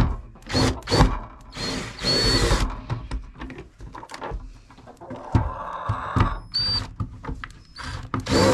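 Cordless drill backing screws out of a wooden coop door, running in several short bursts with a high motor whine.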